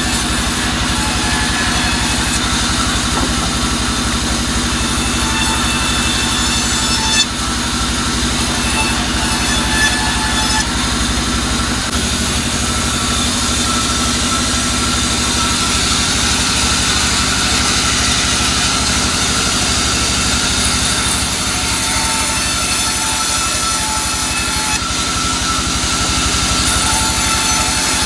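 Sawmill bandsaw running steadily, its blade cutting planks of soft albasia wood over a constant machine drone, with a brief knock about seven seconds in.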